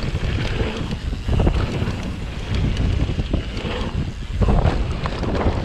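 Wind rushing over an action camera's microphone as a mountain bike rolls down a dirt trail, with scattered knocks and rattles from the bike over the ground, louder about a second in and again near the end.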